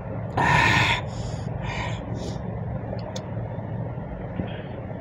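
A person's loud, noisy breath, a gasp, while drinking water from a steel tumbler, followed by three short, fainter breaths.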